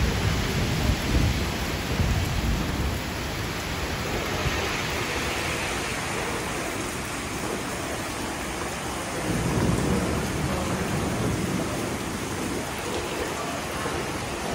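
Steady rain falling, a continuous hiss, with deeper rumbling that swells near the start and again about nine seconds in.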